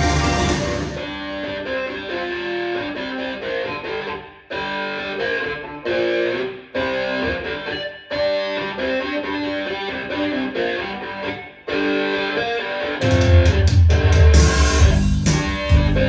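Recorded guitar-led music played loud through Revel M16 bookshelf speakers. About a second in it drops to a lighter guitar passage with a few brief breaks, and the full band with heavy bass comes back near the end.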